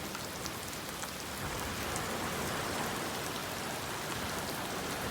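Heavy tropical rain pouring down, a steady hiss of rain with many fine drop patters close by.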